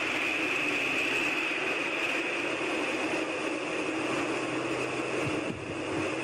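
An unexplained steady whooshing drone with a high-pitched hum over a lower hum. It holds without a break and is called an insane sound.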